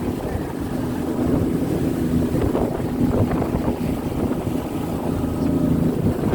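Engine running at a steady speed, a constant hum under a rushing noise of wind buffeting the microphone.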